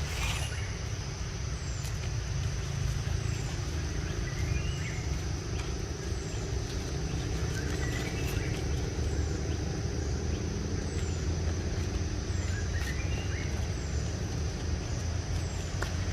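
Outdoor ambience: a steady low rumble under a steady high-pitched whine, with short bird chirps every few seconds and faint high falling chirps about once a second.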